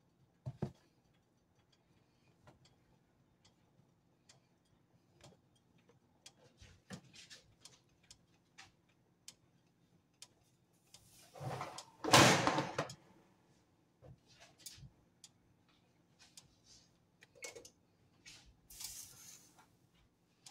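Kitchen handling sounds as marinated ribs are worked into a plastic tub of flour: scattered light clicks and taps, a loud rustling clatter about twelve seconds in, and a shorter, hissier rustle near the end, over a faint steady hum.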